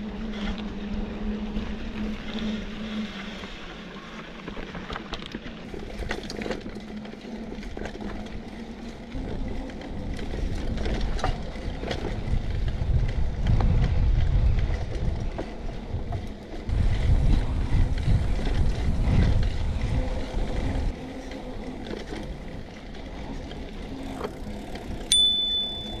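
Mountain bike ridden along sandy dirt singletrack: steady tyre and drivetrain rattle, with surges of low wind rumble on the handlebar-mounted camera's microphone. Near the end a handlebar bell rings once with a sharp ding.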